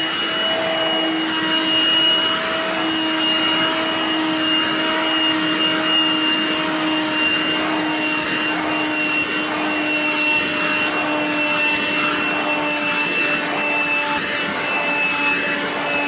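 BLACK+DECKER cordless lithium Dustbuster hand vacuum running over carpet: a steady motor whine over a suction hiss. Its pitch sinks slightly as the battery runs flat.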